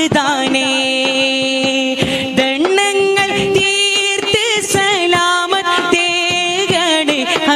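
A male singer holds long, ornamented notes of a Malayalam madh song over a steady percussion beat; his voice steps up to a higher held note about a third of the way in.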